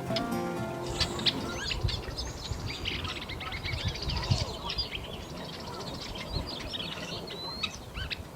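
Several birds chirping and calling at once, many short chirps and trills over low background noise.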